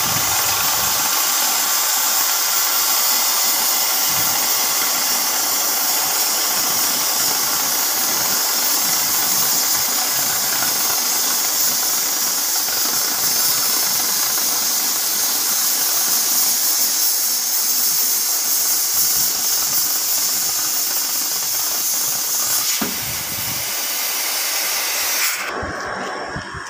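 CNC cutting torch cutting through steel plate, a loud steady hiss of the cutting jet. Near the end the hiss drops away sharply as the cut finishes.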